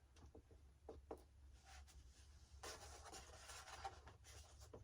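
Faint scratching and rubbing on the foam airframe of an RC model jet as the LED lead is worked into its freshly cut channel, with a few light ticks in the first second.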